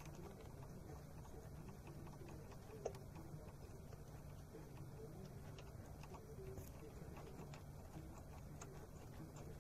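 Faint, irregular clicks and light knocks of metal parts and tools being handled in a car's engine bay, over a low steady hum; one sharper click about three seconds in.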